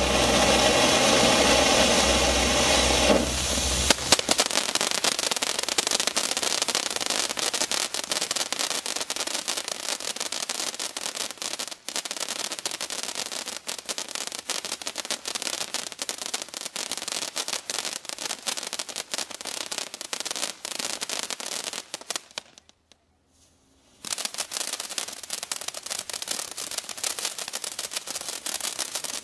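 Dominator Hot Lips fountain firework burning: a loud, steady spray for the first three seconds or so, then a dense, continuous crackle of sparks. Near the end the crackle drops out for about a second and a half, then comes back.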